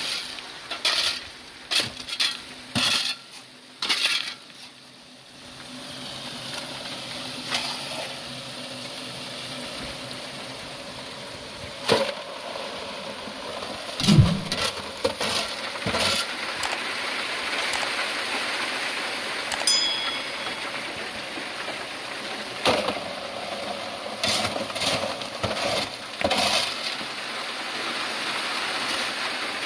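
Stones and gravel clinking and knocking together as they are worked by hand or tool, in a string of sharp irregular knocks over a steady hiss.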